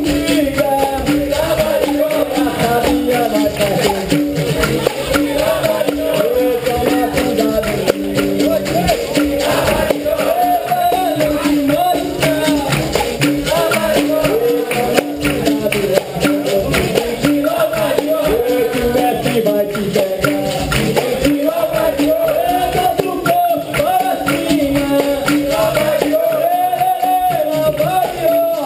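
Capoeira roda music: berimbaus and pandeiro playing a steady rhythm under group singing.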